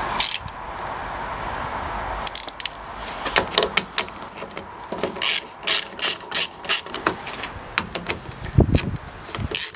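Ratcheting screwdriver undoing screws from plastic tailgate trim, clicking in quick runs about two to three strokes a second. A steady rushing noise fills the first two seconds.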